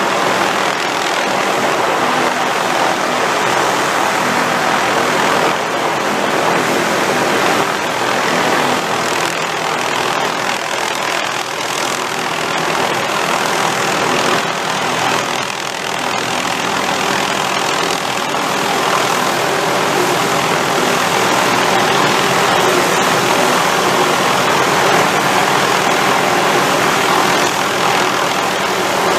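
Helicopter running steadily, a loud, even engine and rotor sound with no break or change.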